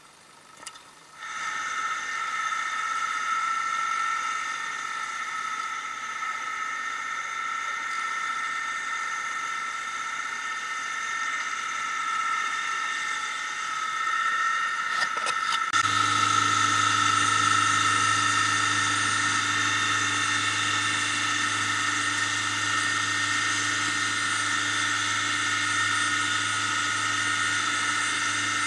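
Dive boat's engine running steadily at cruising speed, a constant whine with a low hum joining and growing stronger about halfway through.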